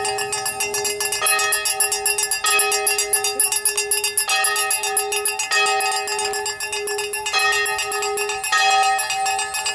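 Bells ringing continuously, struck over and over, one pitch ringing steadily underneath while the higher tones change about once a second.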